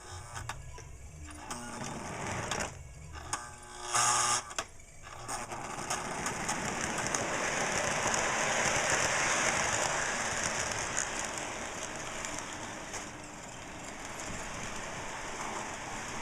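Clicks and knocks of the model train being handled on the track, with one louder knock about four seconds in. Then a Lionel O gauge diesel locomotive runs around the layout: a steady whirring hiss of its electric motor and wheels on the rails, which swells and then eases a little as it passes.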